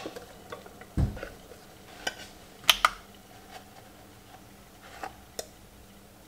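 A few scattered knocks and clinks of small objects being handled, like dishes or utensils, with a dull thump about a second in.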